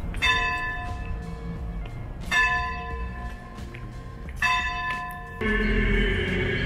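A church bell struck three times, about two seconds apart, each stroke ringing on and fading slowly. About a second before the end it cuts abruptly to music.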